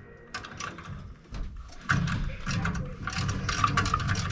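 Small metal tools being handled on a gas furnace: a run of clicks and knocks that turns into a denser, louder clatter from about two seconds in.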